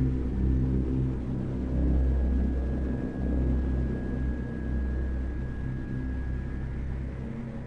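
A steady low rumbling drone with several held low tones and a faint thin high tone, dipping briefly about three seconds in. It is an added background sound bed, not the footage's own sound.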